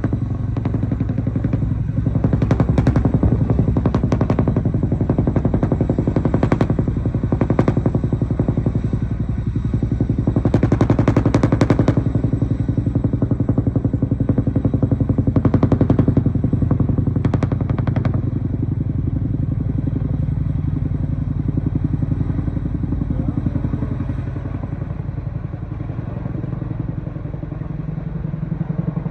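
Chinook tandem-rotor helicopter running: a steady fast beat of rotor blades over engine noise, with louder rushing gusts twice in the middle. It grows somewhat quieter near the end.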